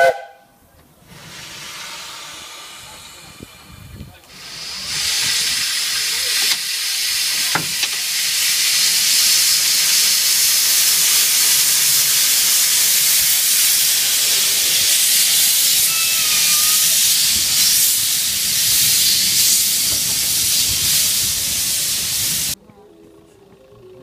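Steam hissing from the open cylinder drain cocks of a small 1918 Andrew Barclay narrow-gauge tank locomotive as it gets under way after the right-away. The hiss is faint at first, becomes a loud, steady rush about four seconds in, and cuts off suddenly near the end.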